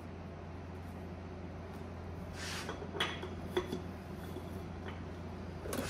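Light metallic clicks and short scrapes as a piston ring is handled and pushed into a big-block Chevy cylinder bore to check its gap, with two sharp clinks about three seconds in, over a steady low hum.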